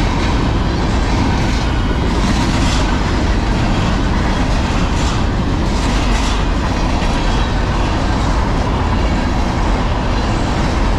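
Freight train's container flatcars rolling past close by: a loud, steady rumble of steel wheels on rail, with scattered clacks as the wheelsets cross rail joints.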